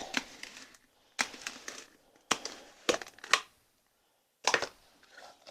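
Light clicks and knocks of paint containers and palette being handled, in a few short clusters.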